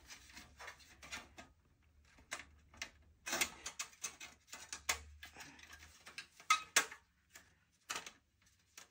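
Thin sheet-metal motherboard I/O shield being pushed into the back of a PC case: scattered light clicks, taps and scrapes as it is worked into its opening.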